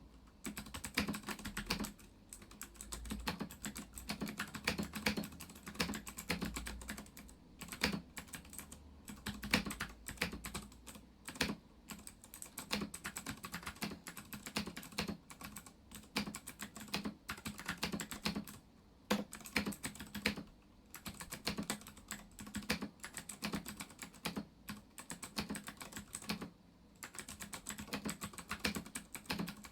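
Fast, continuous typing on a Ducky One 2 Mini mechanical keyboard with Cherry MX Blue switches: a dense stream of sharp key clicks from the clicky switches, broken by a few brief pauses.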